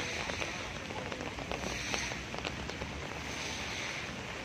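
Heavy rain falling steadily on wet paving and on a large umbrella held overhead, a continuous hiss with many single drops ticking close by.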